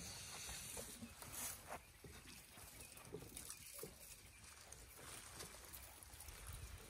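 Faint rustling and scattered small crackles of elephants moving and browsing among dry thorn branches, with no loud event.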